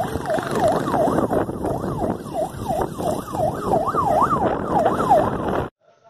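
A siren wailing in a fast up-and-down yelp, about two to three swoops a second, over wind and crowd noise; it stops abruptly near the end.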